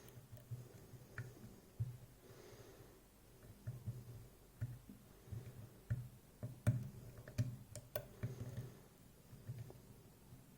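Faint, irregular metallic clicks and light scraping of a lock pick and tension wrench working the pins inside a Schlage Everest Primus cylinder lock, roughly one click a second. The pins are being picked again after a set pin dropped.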